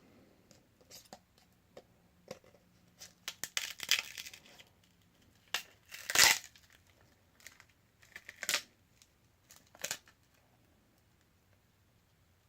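Cracked glass screen of a Samsung Galaxy S5 being pried off the phone's adhesive: scattered clicks and crackles, a quick run of them about four seconds in and the loudest about six seconds in.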